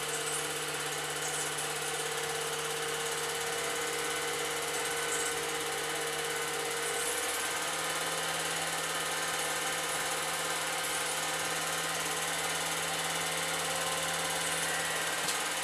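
Old 8mm film projector running steadily, a whirring motor hum with the film mechanism chattering through it. The hum steps slightly higher in pitch about halfway through.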